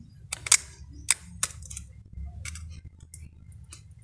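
Small sharp clicks and ticks at an uneven pace, about seven in all, the loudest about half a second in: a tool working at the small plastic retaining catch of a phone's SIM card socket to unlock it.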